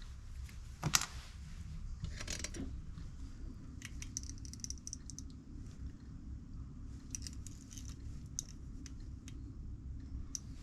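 Small metallic clicks and a short scraping rattle of hand tools on metal, with one sharper click about a second in. They come from a Helicoil insertion tool being worked to wind a stainless steel wire thread insert into the alloy crankcase. A low steady hum lies underneath.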